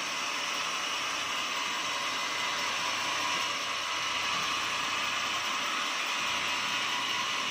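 Horizontal band sawmill running: a steady, unbroken high-pitched machine noise that holds level throughout.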